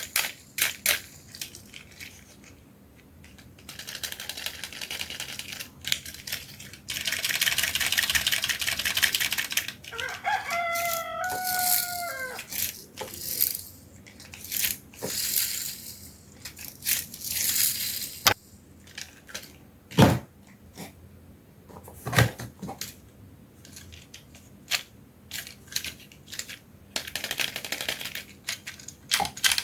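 Toys and plastic packaging being handled: scattered clicks and knocks, two heavier knocks around twenty seconds in, and bursts of crinkling rustle. A rooster crows once about ten seconds in.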